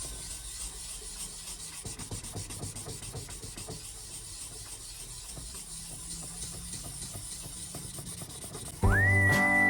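Faint, irregular scraping and rubbing over a steady hiss. Near the end, background music with a whistled tune comes in loudly, its first note rising and then holding.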